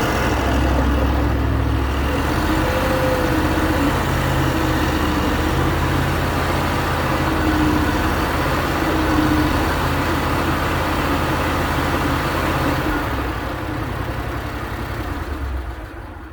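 Bobcat M600 skid steer loader's engine running steadily, falling away near the end.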